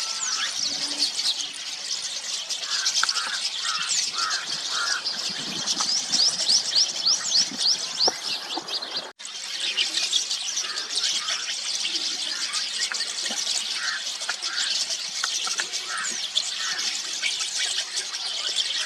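A flock of rosy starlings chattering: a dense, continuous mix of many short squeaky notes and whistles, with lower repeated calls mixed in. The sound cuts out for an instant about nine seconds in.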